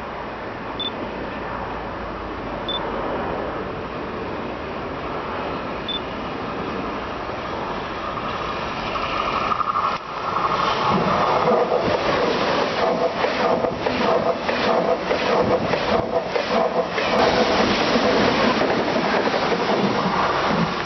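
A TGV Duplex high-speed train approaching and passing through the station at speed: its running noise grows, becomes loud about ten seconds in, and for several seconds the wheels clack rhythmically over the track, about once every 0.7 s, as the bogies go by.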